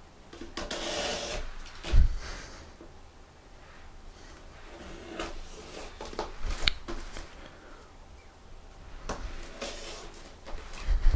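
Shrink-wrapped cardboard laptop box being handled while a small knife cuts its plastic wrap: rustling and scraping, a thud about two seconds in, and scattered clicks and scrapes later.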